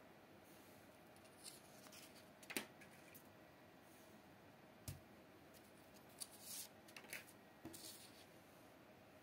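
Near silence broken by a few faint, scattered rustles and taps of paper: a hand-drawn paper phone cut-out being tapped and handled on a wooden table.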